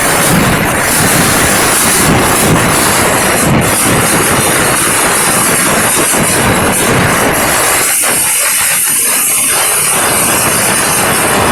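Fireworks going off in a dense, continuous barrage: rapid crackling bangs merge into one loud, steady hissing rush. About eight seconds in, the low booms thin out while the high crackle and hiss carry on.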